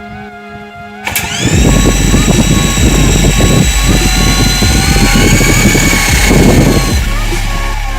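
Electric RC helicopter motor and rotor whining up about a second in and then holding a steady high whine, with wind buffeting the microphone in heavy low rumbles. The whine stops about seven seconds in.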